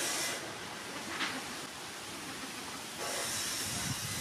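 A steady hiss of background noise that swells at the start and again from about three seconds in, with a brief faint scrape about a second in.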